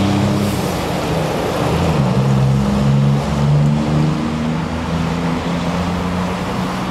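Road traffic running close by: a heavy goods lorry's diesel engine passing, with the engine notes shifting up and down in pitch about two to four seconds in, over tyre and road noise.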